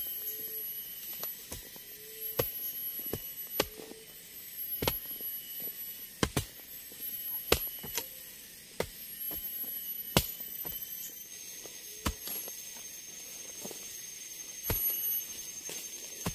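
Hand-tool strikes about once a second at uneven spacing, over steady shrill insect calls.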